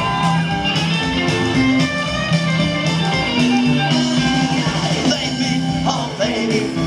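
Live rock band playing a passage without vocals: guitar over held bass notes and a steady drum beat.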